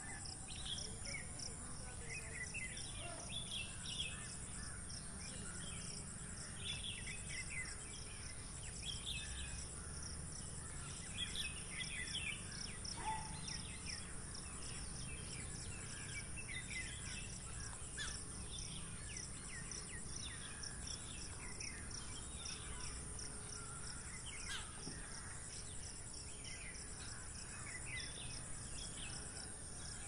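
Outdoor ambience of insects trilling steadily in a fast, even pulse, with many short, high bird chirps and twitters scattered over it, and a low rumble underneath.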